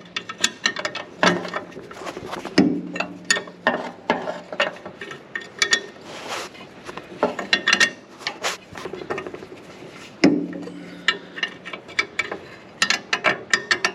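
Ratchet wrench clicking in short irregular runs as a nut on the Ventrac mower deck's drive-shaft bolt is tightened, with metal tools clinking against the steel deck housing. A few louder knocks leave the metal ringing briefly.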